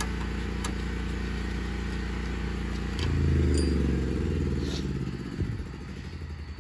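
An engine running with a steady hum, growing louder about three seconds in with wavering pitch, then fading out near the end.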